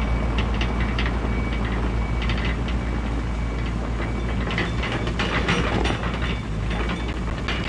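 Mini excavator's diesel engine running steadily under load as the machine tracks along pushing loose dirt with its dozer blade, with irregular clanking and rattling from the tracks and undercarriage.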